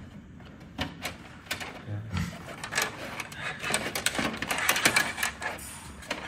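Insulated wires being pulled through a hole in a baseboard heater's sheet-metal wiring channel: irregular rustling and scraping with scattered sharp clicks as the wire rubs and taps against the metal housing.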